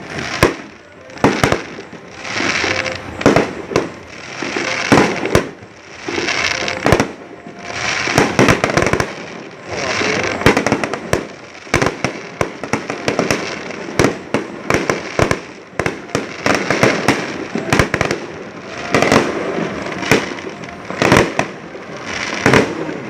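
New Year's fireworks display: a long run of aerial shells bursting one after another as sharp bangs, with crackling between them.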